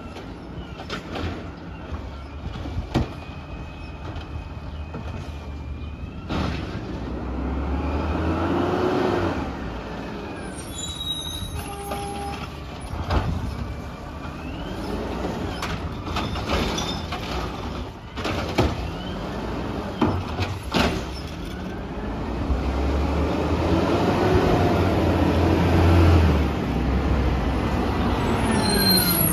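CNG Peterbilt garbage truck with an Amrep automated side-loader body at work: the arm shaking out a plastic recycling cart with knocks and clanks, then the engine revving up and down twice as the truck pulls forward and works its hydraulics.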